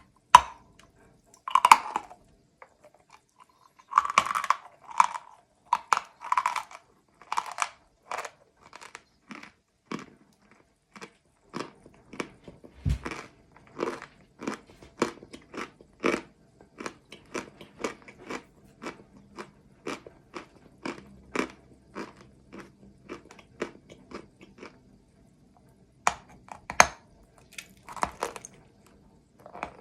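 A person biting into and chewing crunchy chalk: several loud crunching bites in the first eight seconds, then steady chewing crunches about two a second, with more loud bites near the end.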